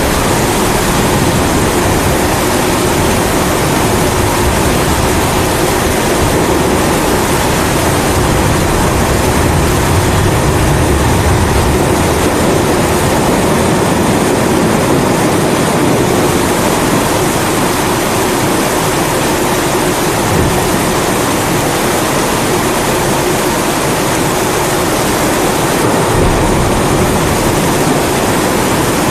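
Kerosene pressure stove (primus) burning with a steady roar, layered with steady rain. Low rumbles of thunder swell about ten seconds in and again near the end.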